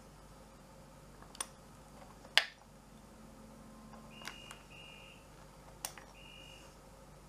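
A few sharp clicks and light knocks from hands working the rifle and its small metal parts, the loudest about two and a half seconds in. Three faint short electronic beeps at the same high pitch come between about four and seven seconds in.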